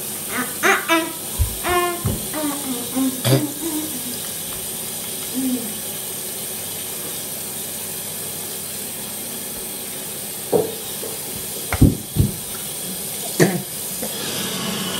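Bathroom tap running steadily into a sink while children brush their teeth. Children's voices are heard in the first few seconds, and there are a few sharp knocks toward the end.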